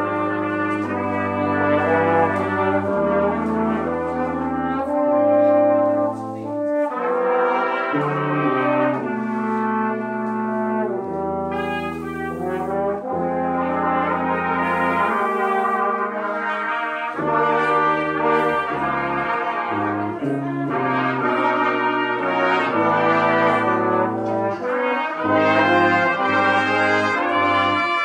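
Brass quintet of trumpets, French horn, trombone and tuba playing a piece live, in full held chords over a tuba bass line that steps from note to note every second or two.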